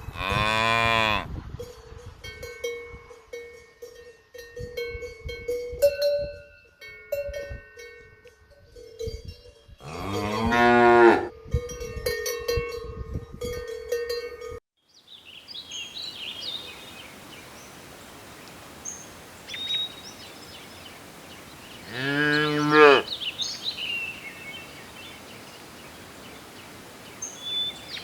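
Cow mooing three times, each a long low moo. Between the first two moos a cowbell rings in short repeated notes; after a sudden break, small birds chirp faintly before the third moo.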